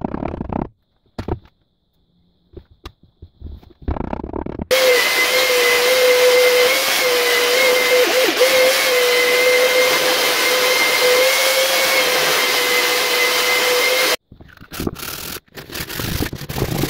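A Ryobi belt sander runs steadily on wood for about nine seconds with a constant whine, then cuts off suddenly. Before it come a few sharp knocks of a hammer tapping glued dowels home. After it come quick scraping strokes of hand sanding with sandpaper on a block.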